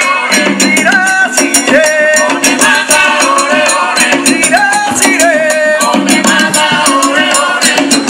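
Upbeat Latin-style music with a rattling shaker beat and a melody line that slides between notes.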